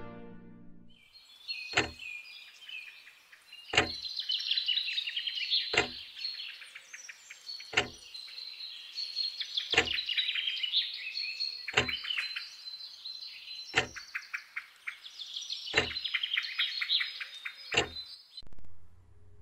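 Small birds chirping and twittering without pause, with a sharp clock tick every two seconds. Both cut off suddenly near the end, leaving a faint low hum.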